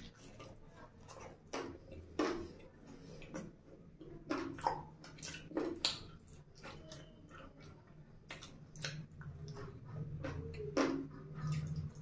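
Close-miked chewing and biting of sauce-coated fried chicken lollipops: irregular wet mouth sounds and sharp clicks as the meat is pulled off the bone and chewed.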